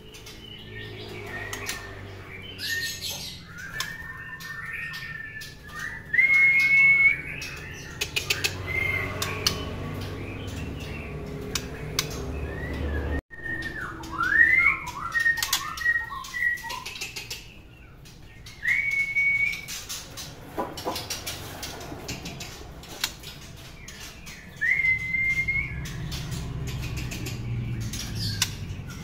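White-rumped shamas whistling short clear notes and rising slurs, with wings fluttering and sharp clicks as they hop about in a wire cage.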